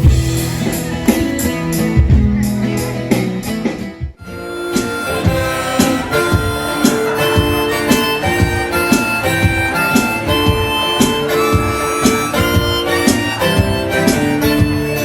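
Live blues band music: a harmonica playing held, stepping notes over guitar. The music breaks off abruptly about four seconds in and resumes with the harmonica leading.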